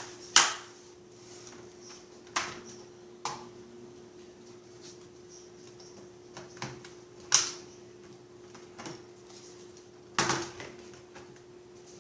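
Scattered sharp plastic clicks and knocks, about five strong ones spread irregularly, from a laptop's screen bezel and case being handled and pressed back into place.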